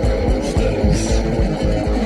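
Instrumental rock music with guitar, keyboards and drums playing a steady beat.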